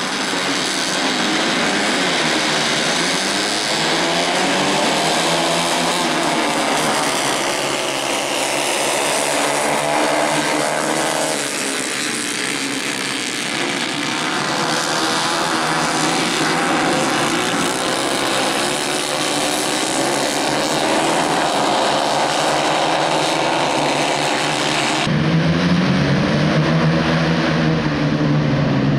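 A pack of racing kart engines running together, several overlapping engine notes rising and falling as the karts accelerate and lift through the corners. Near the end the sound changes suddenly to closer karts, deeper and louder.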